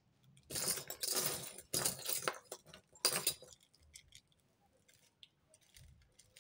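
Costume jewellery clinking and jangling as hands rummage through a pile of metal chains, brooches and beads, busiest for the first three seconds, then a few light clicks as a piece is untangled.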